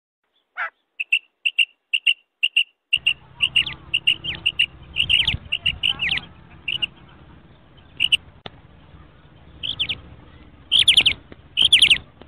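Female common quail giving its 'kirak' call, the call played to lure male quail: first a quick series of short, high notes, then, after a change to another recording with a low background hum about three seconds in, more calls in clusters of rapid notes.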